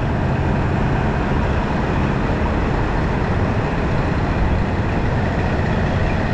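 Diesel railcar engine idling: a steady low hum with an even mechanical rumble.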